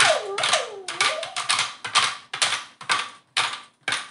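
Wooden limberjack (jig doll) dancing on a bouncing wooden paddle: quick, irregular wooden clacks, about four a second, as its loose jointed legs strike the board.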